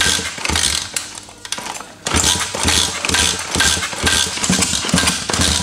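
Freshly assembled pitbike's small single-cylinder engine running on the stand in short bursts, about two a second, with a brief lull about a second and a half in. This is its first test run after assembly and fuelling.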